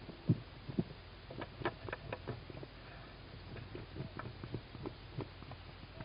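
Tawny owl chicks shuffling in a wooden nest box: a quick run of irregular soft knocks and scratches from their bodies and claws against the wood, over a steady low hum.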